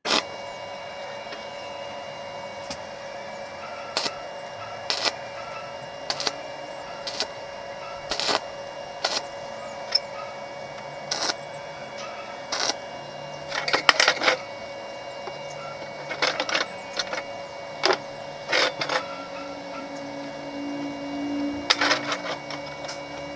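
Light metallic clicks and clinks, roughly one a second with a quick cluster about halfway through, as small steel parts and tools are handled on a steel workbench, over a steady multi-tone electrical hum.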